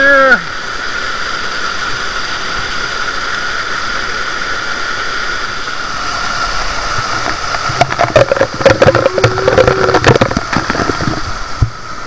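Small mountain waterfall and stream running steadily. From about eight seconds in there are a few seconds of close, irregular splashing and knocking.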